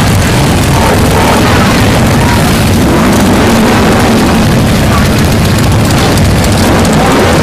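Loud rumble of many motorcycle engines as a parade of bikes rides past close by, including a red sport bike and a touring cruiser with passengers. The engine pitch rises and falls a few times.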